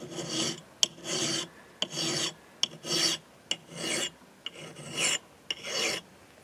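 A flat hand file rasping across the steel bevel of a double-bit axe head in about seven even push strokes, a little under one a second, with a short tick between strokes. The file is taking metal off to thin the axe's grind.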